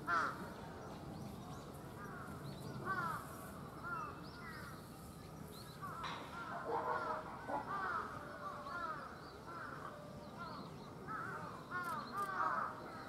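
Birds calling: many short, arching calls repeated over and over and often overlapping, as from several birds at once.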